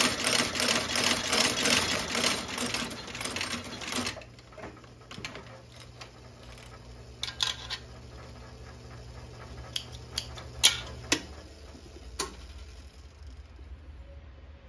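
Landis sole-stitching machine sewing through a leather sole with a fast, even clatter of stitches that stops about four seconds in. A low hum carries on until about eleven seconds in, with a few sharp clicks scattered after the stitching stops.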